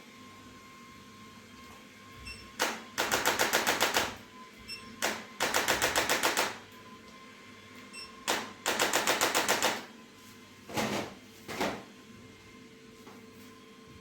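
Handheld percussion instrument used in chiropractic treatment tapping rapidly, about nine strikes a second, in three runs of roughly a second and a half each, then two short bursts near the end.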